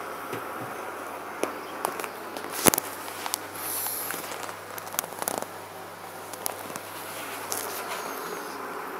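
Steady buzzing hum of a machine running, with scattered clicks and knocks over it; the loudest knock comes about two and a half seconds in.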